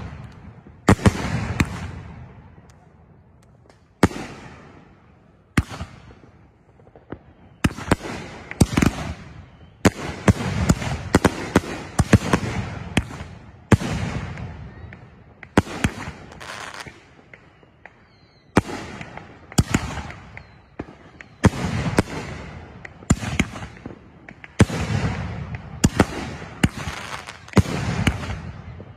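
Consumer aerial fireworks going off: a rapid, irregular string of sharp bangs from bursting shells, each trailing off over about a second. A few short lulls break up the volleys.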